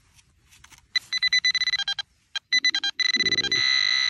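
Handheld metal-detecting pinpointer probing loose soil, giving quick high electronic beeps that come faster and run together into a near-steady high tone from about three seconds in as it closes on the buried metal target.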